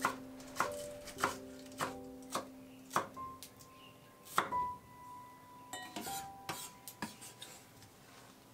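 Chef's knife chopping green onions on a wooden cutting board: a crisp stroke roughly every half second at first, then fewer, more scattered taps. Light background music plays underneath.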